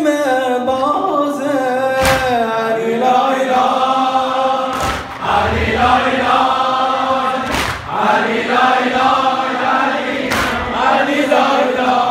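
A Farsi noha (Shia mourning lament): a congregation of male voices chants the refrain in unison, led by the reciter's amplified voice. A heavy unison thud lands about every three seconds, the mourners beating their chests in time (sineh-zani).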